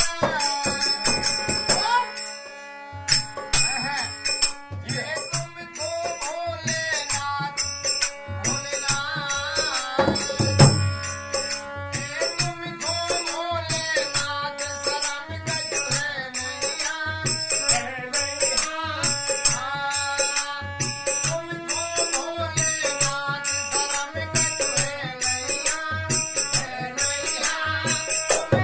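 Instrumental passage of a folk devotional bhajan: a melody line over a fast, steady percussion beat, with a short break about two seconds in.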